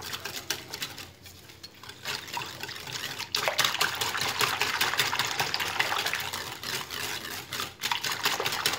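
Wire whisk beating a thin egg, milk and olive-oil batter in a glass bowl: rapid splashing strokes through the liquid, louder from about three seconds in.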